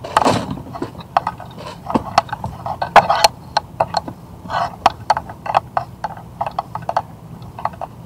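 Irregular sharp clicks and knocks of fishing tackle being handled in a boat while a hooked fish is played.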